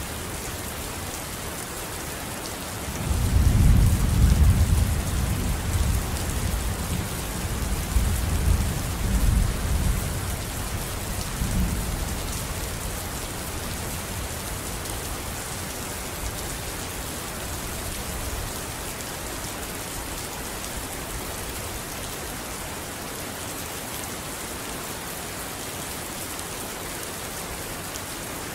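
Steady hiss of rain, with a low rumble that swells about three seconds in and dies away by about twelve seconds.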